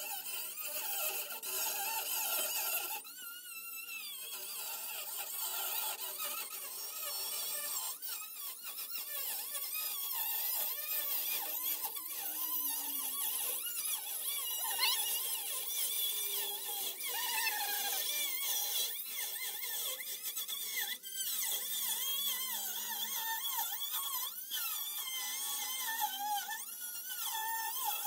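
Small handheld cut-off wheel whining as it cuts through a rusted sheet-steel car floor pan, its pitch wavering up and down as the wheel loads and frees up in the cut.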